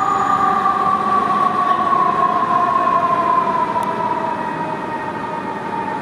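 A fire engine's Federal EQ2B electromechanical siren winding down: a loud, sustained two-note tone that slowly falls in pitch and fades as the truck pulls away.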